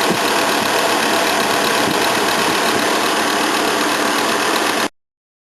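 Steady machine noise running at an even level, with a faint high whine in it, cutting off abruptly near the end.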